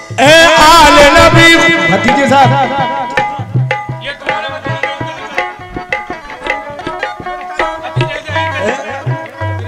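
Qawwali music: harmonium accompaniment and hand drums playing a steady rhythm with deep bass strokes, under a wavering sung phrase without words for about the first two seconds.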